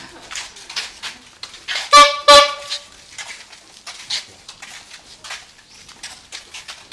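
Two short toots of a vehicle horn about two seconds in, one right after the other, with faint scattered clicks and taps around them.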